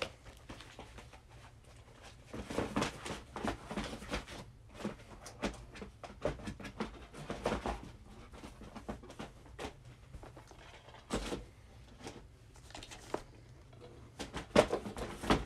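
Plastic Blu-ray and DVD cases clacking and sliding against each other as they are handled and stacked, in irregular clusters of clicks and knocks, the loudest near the end.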